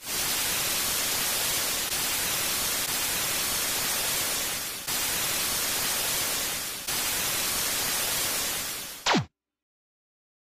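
Television static sound effect: an even white-noise hiss across all pitches. About nine seconds in it ends with a brief, louder tone sweeping down in pitch as the static cuts off.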